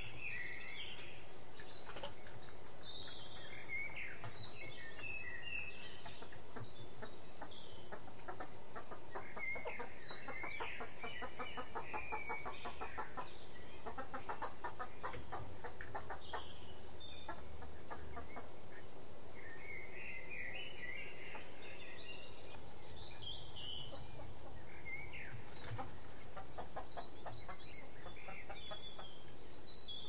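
Chicken clucking in runs of rapid pulses, mostly in the middle and again near the end, with small birds chirping high over it throughout.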